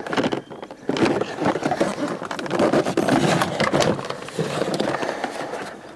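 Plastic door trim panel scraping, creaking and clicking against the door as it is pushed and worked into place by hand, in an irregular run of short scrapes and knocks.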